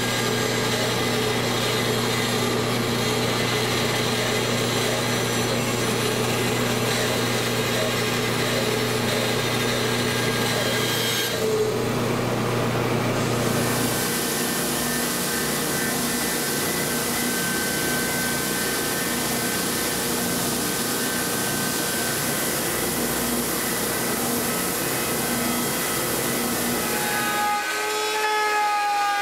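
A bandsaw cutting a curved shape from a veneered plywood panel, with a steady motor hum, for roughly the first eleven seconds. From about fourteen seconds a stationary belt edge sander runs with a hissing sound as the panel's curved edge is sanded. Near the end the machine sound changes to a whine that glides in pitch.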